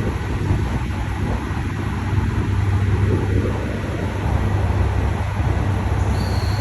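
Diesel limited express train pulling out, its engines running with a steady low rumble. Near the end a high wheel squeal starts and slowly falls in pitch.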